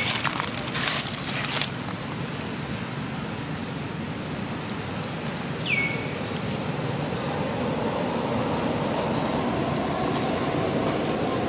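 Outdoor background noise: crackling for the first two seconds, two brief high falling chirps (one at the start, one about six seconds in), and a steady motor hum that builds over the second half.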